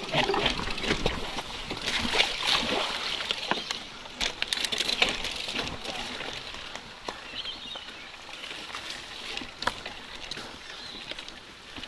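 Mountain bike riding down a wet, rocky trail: tyres rolling and splashing through water running over the rock, with rattling knocks from the bike over the bumps. Rougher and louder for the first half, then steadier rolling.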